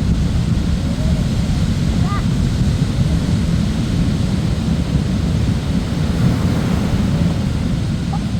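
Steady rumble of ocean surf on the beach, heavily mixed with wind buffeting the microphone. A few faint short calls or voice fragments come through, once about a second in, again about two seconds in, and near the end.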